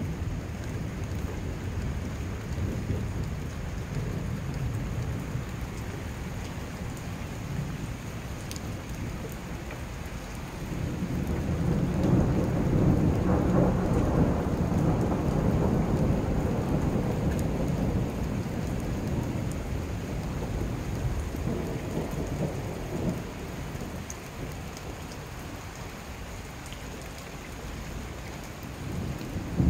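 Thunderstorm: rain falling steadily, and about eleven seconds in a long low rumble of thunder swells up and rolls on for several seconds before slowly dying away.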